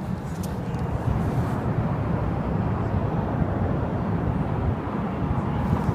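A steady, low rushing noise.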